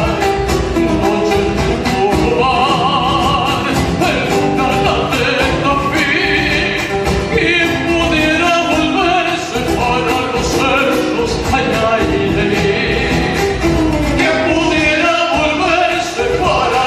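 A song: a voice singing over instrumental accompaniment, holding long notes with vibrato.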